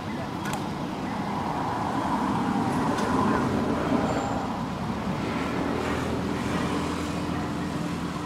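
A motor vehicle engine running nearby, growing louder toward the middle and easing off again, with a steady low hum.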